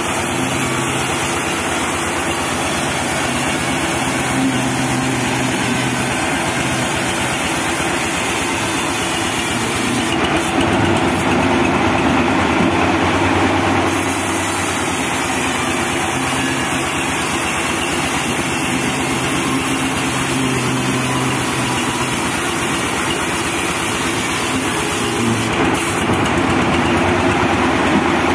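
Homemade diesel-driven band sawmill running steadily, its band saw cutting a teak log as the log is pushed through. A brighter high hiss comes in for a few seconds about a third of the way in and again near the end.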